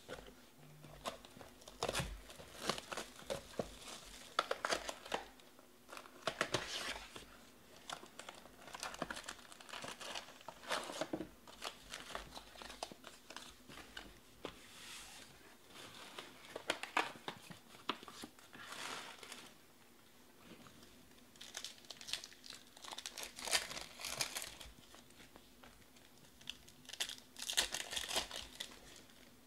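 Foil wrappers of 2020 Panini Select Baseball card packs being handled and torn open by hand, crinkling and crackling in repeated bouts.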